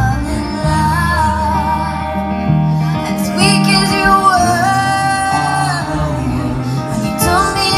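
Live band music: a woman singing a slow melody with acoustic and electric guitar accompaniment.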